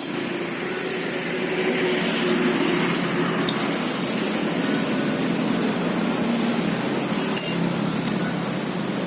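Car engine running steadily, with a sharp metallic clink right at the start and another about seven seconds in.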